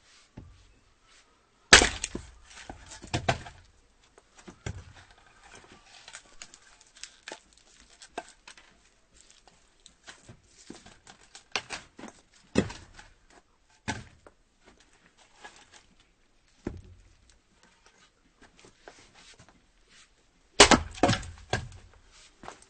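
Axe chopping firewood: two hard strikes that split the wood, about two seconds in and again near the end, each followed by the clatter of split pieces falling. Between them come lighter knocks and rustles of wood being handled.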